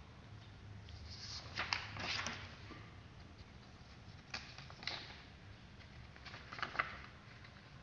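Sheets of printer paper rustling and crackling as they are held up and shifted, in several short bursts: a cluster about two seconds in, then briefer ones later. A low steady hum runs underneath.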